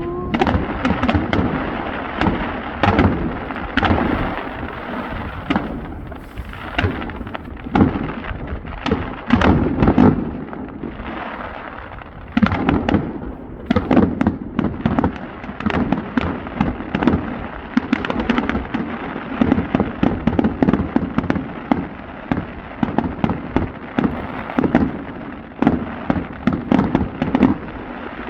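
Fireworks display: a rapid, continuous barrage of bangs and crackling bursts that starts suddenly, with a brief rising whistle at the very start.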